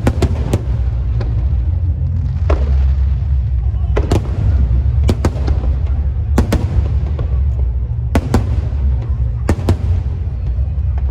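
Fireworks going off: a dozen or so sharp bangs at irregular intervals, often two in quick succession, over a steady low rumble.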